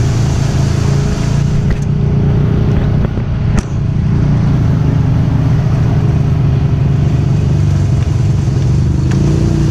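ATV engine running steadily while riding along a trail, with a sharp knock about three and a half seconds in.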